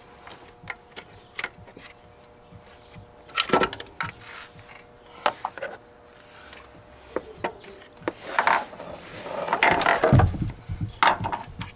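Pry bar and aluminium alternator case knocking and scraping against the metal mounting bracket as the alternator is pried out and lifted free. Scattered clanks and clicks, with a heavier thud and clatter near the end.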